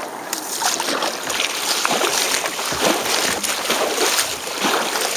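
Water splashing and rushing against the bow of a paddled sea kayak, right at the microphone of a waterproof camera on the foredeck. The splashing starts suddenly about a third of a second in, with repeated sharper splashes.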